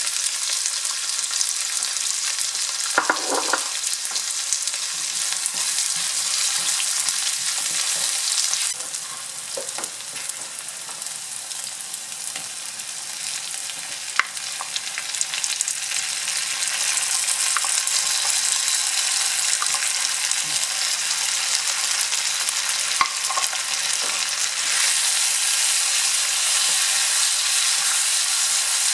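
Chopped onion and garlic, then tomatoes, frying in oil in a nonstick wok: a steady sizzle with scattered clicks and scrapes of a wooden spatula stirring, and a knock about three seconds in. The sizzle softens for several seconds past the middle and is strongest near the end.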